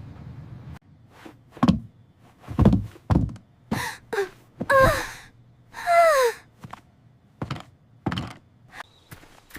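A few dull thumps and knocks, then several short pitched cries that fall in pitch, like a whimper or whine.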